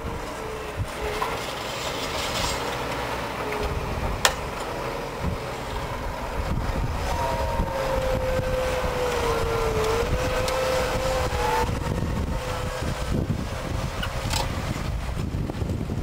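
Case IH 230 CVX tractor engine running steadily under load while pulling a mounted reversible plough through the soil. A wavering whine sits over the drone for a few seconds in the middle, and there is a single sharp click about four seconds in.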